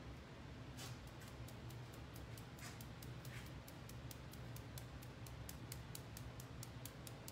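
A marbling brush being tapped to spatter paint drops onto the marbling bath for a stone pattern: quick, even ticks about five a second, starting about a second in.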